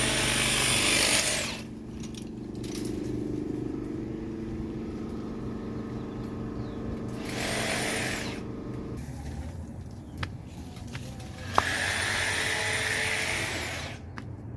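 Power saw cutting in three short bursts, the longest near the end, with a sharp click just before the last one.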